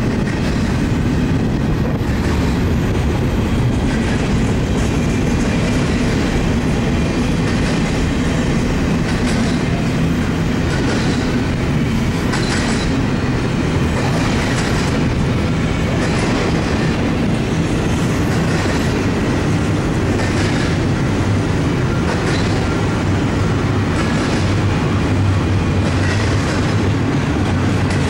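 Union Pacific double-stack container freight cars rolling past close by: a steady, loud rumble with the wheels clacking over rail joints every second or two.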